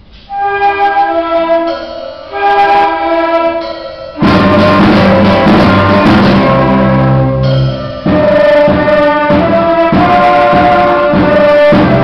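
Youth orchestra of strings, flutes, clarinet and trumpets playing: two short phrases, then much louder, fuller ensemble playing from about four seconds in, with a brief break near eight seconds.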